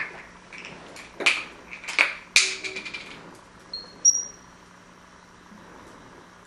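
African grey parrot giving three short, harsh calls, then two brief high whistles about four seconds in.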